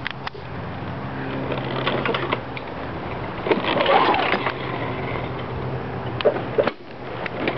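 Old push lawn mower being worked at to start, but not catching: a steady low mechanical hum with knocks and rattles around the middle.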